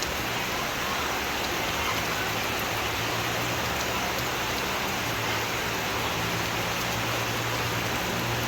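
Heavy rain falling steadily, an even hiss of drops with no break. A faint low steady hum runs underneath.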